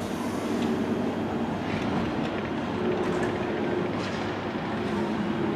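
JR 205 series 5000-subseries electric train at the platform, a steady mechanical hum as it gets under way after its doors have closed.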